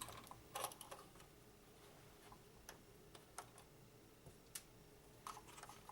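A few faint, irregular small clicks of hard plastic being handled as a toy RC truck's battery compartment is opened, over near-silent room tone.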